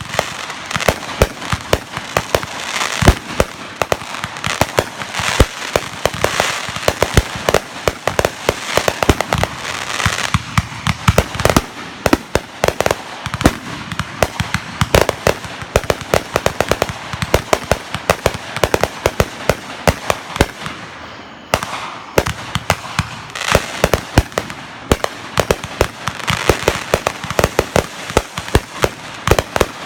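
Fireworks going off in a continuous rapid barrage of sharp bangs and crackling, with a brief lull a little over two-thirds of the way through before the bangs resume.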